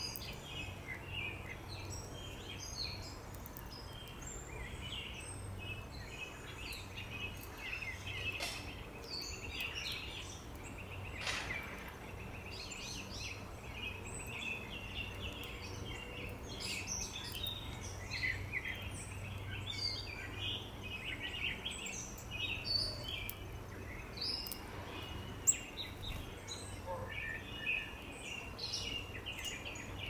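Wild songbirds chirping and singing continuously, many short high calls and trills overlapping, over a steady low hum. There is a single sharp click about 25 seconds in.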